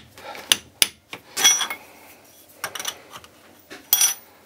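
Light hammer taps on a milling-machine vise, nudging it back into alignment: about six irregular taps, some ringing briefly like struck metal.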